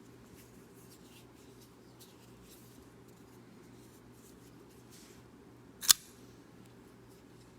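AUBEY Damascus folding pocket knife being handled: faint light clicks and rubbing, then one sharp, loud click about six seconds in as the blade snaps into place.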